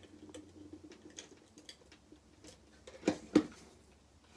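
Stampin' Up! Seal Plus tape runner laying adhesive along a paper edge: faint scattered clicking and ticking, with two sharper clicks a few tenths of a second apart about three seconds in.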